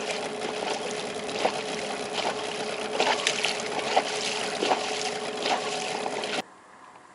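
Water splashing and slapping against the hull of an inflatable boat under way at slow speed, over a steady motor hum. It all cuts off suddenly about six seconds in, leaving only a faint background.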